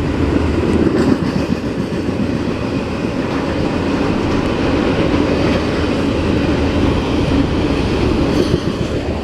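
Freight train rolling past, a steady rumble of steel wheels on the rails.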